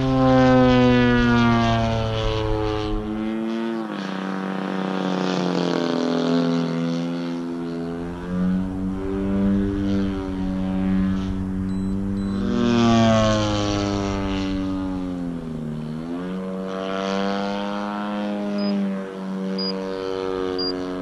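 Extreme Flight Slick 580 RC aerobatic plane in flight, its DLE 120cc twin-cylinder two-stroke gas engine and propeller running continuously. The engine note rises and falls as the throttle changes and the plane manoeuvres, with a sharp drop in pitch around sixteen seconds in.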